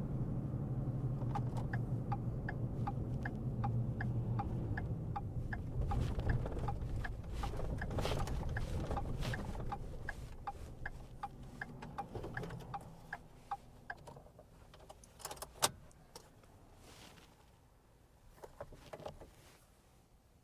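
Car turn signal ticking steadily, about two ticks a second, over the low hum of the car slowing to a stop as it pulls over. The hum and ticking die away about two-thirds of the way through, followed by one sharp click and a few small clicks.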